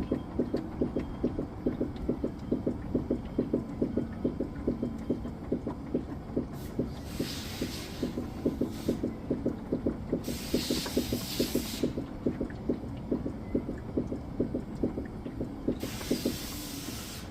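Rhythmic knocking or squeaking, about three times a second, from a Tesla Model Y's suspension: an odd noise of unknown cause. It fades near the end, over a steady low rumble.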